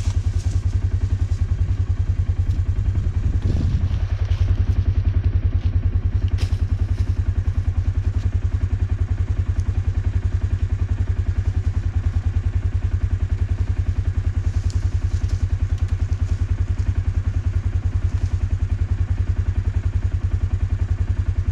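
Four-wheeler (ATV) engine idling steadily with an even, rapid low pulse. There are a couple of short knocks, one a few seconds in and another about six seconds in.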